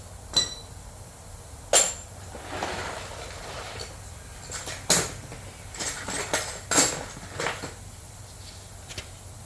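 Metal hand tools clinking and knocking against a small engine while its spark plug is taken out: a few separate sharp clicks, one ringing briefly about half a second in, with a scraping rub around three seconds in.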